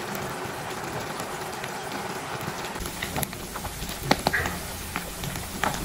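Small fish braising in a thick, reducing sauce in a nonstick pan, with a steady sizzle and scattered sharp pops of bursting bubbles that come more often in the second half.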